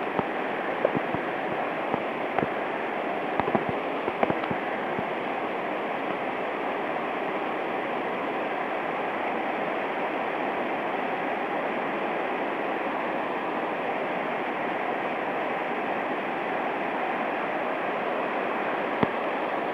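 Steady rush of a fast-flowing mountain stream, its current strong after typhoon flooding. A few sharp knocks sound in the first few seconds and once near the end.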